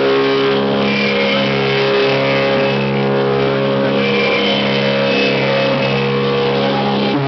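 Dance accompaniment music: a sustained droning chord of several held instrumental notes, without singing, with the chord shifting slightly about a second and a half in.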